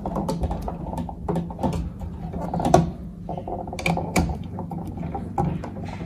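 Screwdriver tightening the brass terminal screws on a new rocker light switch, with irregular small metallic clicks and scrapes of the screw and the wires.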